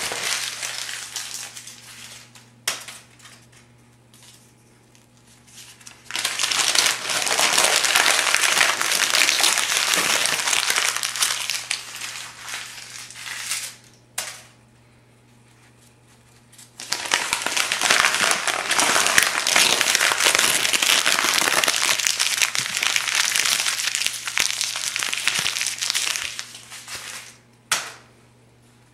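Thin phone book pages being crumpled by hand into balls: long bouts of loud crackling paper, about six to eight seconds each, with quiet gaps between them broken by a few short sounds.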